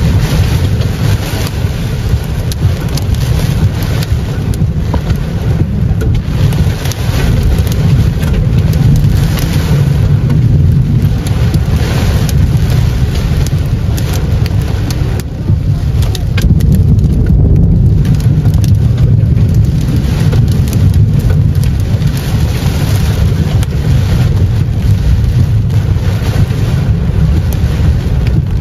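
Heavy rain pelting the roof and windshield of a moving car, heard from inside the cabin, with many sharp drop impacts over the steady low rumble of the car and road.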